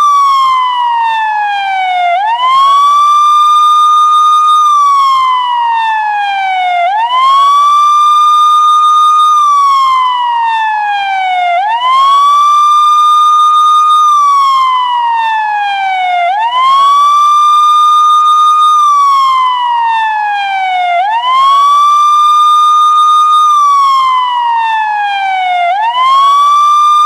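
Indian police siren wailing in a slow repeating cycle: the pitch sweeps quickly up, holds high for a couple of seconds, then glides down slowly, repeating about every four and a half seconds.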